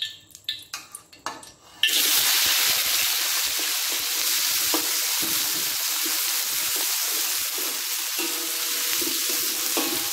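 Chopped chillies, onion, garlic, ginger and lemongrass hit hot oil in a steel wok and start sizzling loudly and steadily about two seconds in, after a few scattered clicks.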